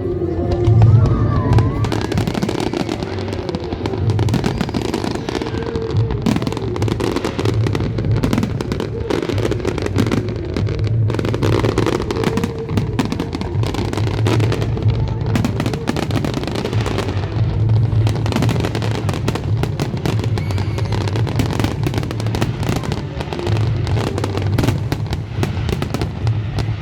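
Fireworks going off in a dense, irregular barrage of bangs and crackles.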